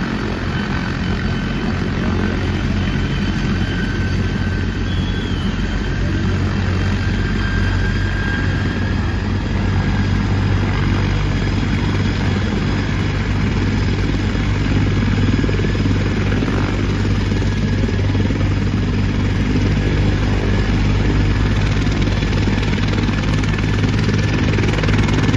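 Helicopter running with a steady low rotor and engine drone that grows gradually louder.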